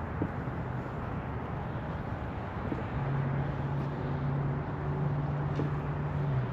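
Urban outdoor background noise with a steady rush like distant traffic; a low steady hum comes in about halfway through.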